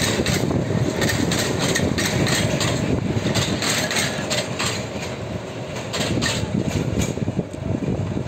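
Narrow-gauge railway passenger carriages rolling past on the rails: a steady low rumble with irregular clanks and rattles from the wheels and couplings.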